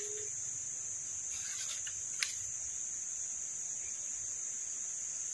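Steady, high-pitched chorus of insects such as crickets, with a single sharp click about two seconds in.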